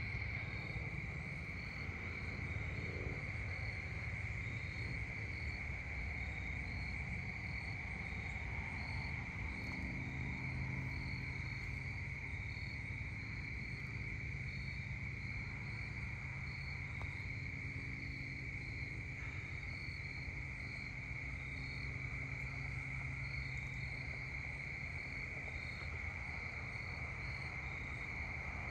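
Evening insect chorus of crickets: a continuous high trill, with short higher chirps repeating about once or twice a second over it. A steady low rumble runs underneath.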